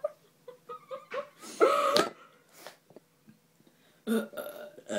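A person burping: a few small burps in the first second, a louder burp of about half a second around a second and a half in, and more short burps near the end.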